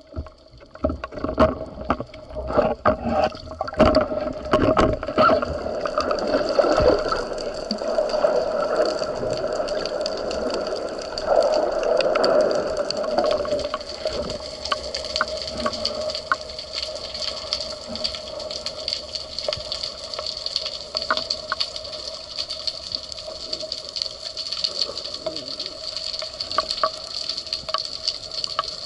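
Underwater sound through a camera housing: a steady watery hiss and hum with many sharp clicks and knocks in the first several seconds, thinning to scattered clicks later, and a louder rush of water about eleven to thirteen seconds in.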